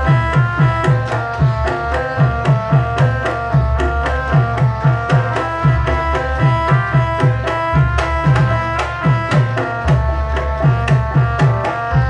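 Javanese gamelan-style accompaniment for a warok dance: hand drums (kendang) struck in a fast, steady rhythm over a stepping melodic line, with a deep gong swell recurring every few seconds.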